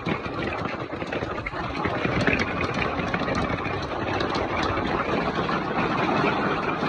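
Golf-ball-sized hailstones pelting down in a dense, unbroken clatter of many hard impacts, with a low rumble underneath.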